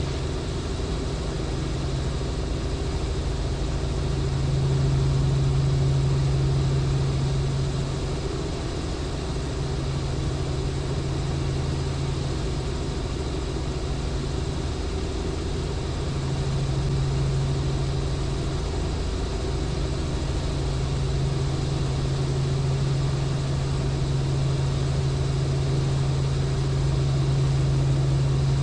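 Robinson R44 helicopter in steady flight, heard from inside the cabin: a continuous low drone of engine and rotors that swells and eases slightly every several seconds.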